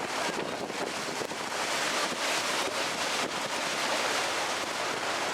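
Steady rushing noise of water washing along a canal tour boat under way, mixed with wind on the microphone.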